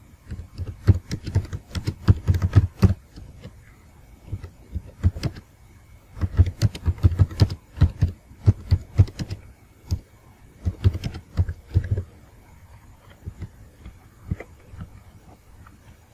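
Typing on a computer keyboard: quick runs of thuddy key clicks in several bursts with short pauses between them, then a few scattered clicks near the end.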